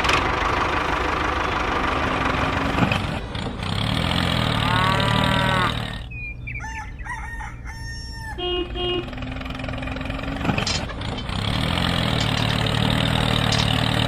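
Tractor engine running steadily. Midway the engine drops away and a rooster crows, followed by some clucking. The engine then comes back in near the end.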